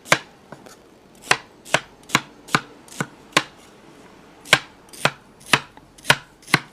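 Knife chopping a banana stem's inner core into small pieces: a run of sharp knocks about two a second, with a brief pause a little past halfway.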